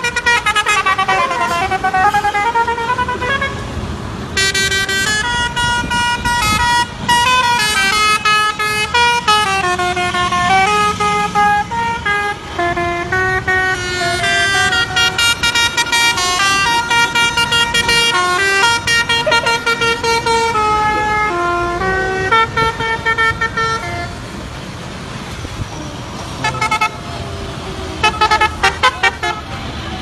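Telolet musical air horn on a heavy-haul lorry playing a tune in quick stepping and gliding notes, over passing-traffic noise. About three-quarters of the way through it drops away, and a few short toots follow near the end.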